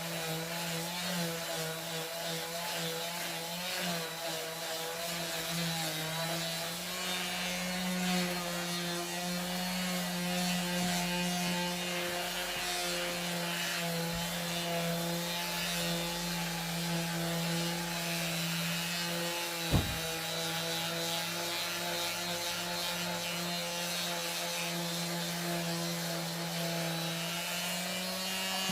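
Electric power sander running steadily against wood, its motor hum shifting slightly in pitch, with one sharp knock about twenty seconds in.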